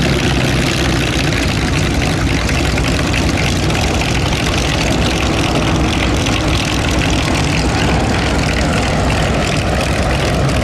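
Piston engine of a propeller aircraft running steadily, holding the same pitch throughout, with a heavy low drone under a broad propeller and exhaust rush.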